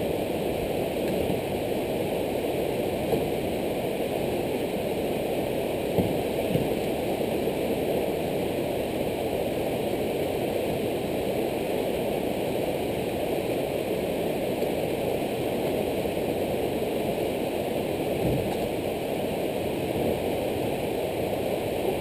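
Whitewater rapids rushing steadily, the water noise even and unbroken, with a faint knock now and then.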